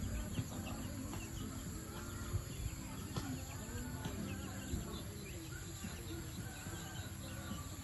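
Chickens scratching and pecking at loose soil, with a few short knocks, faint bird chirps, and a steady high-pitched insect drone.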